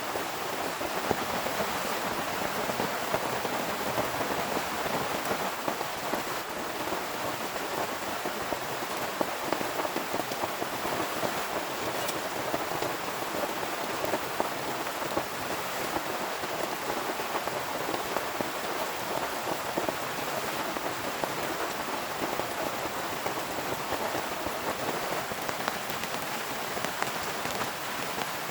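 Heavy rain falling steadily, with many close drops ticking on a surface.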